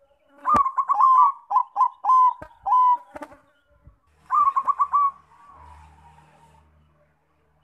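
Zebra dove (Bangkok perkutut) song: a quick run of short, clipped coos, then a second shorter run about four seconds in that trails off into a few softer, lower notes. Two sharp clicks come during the first run.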